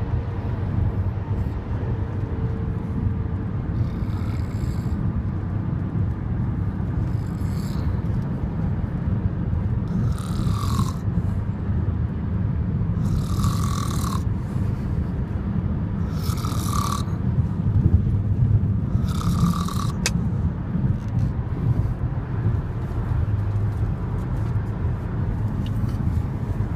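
Very heavy snoring over a steady low rumble, with a harsher, louder snore about every three seconds through the middle stretch.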